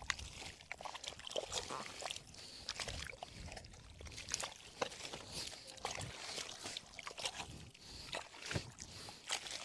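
Hands digging and probing into a wet mud burrow, with irregular squelches and small sloshes of muddy water.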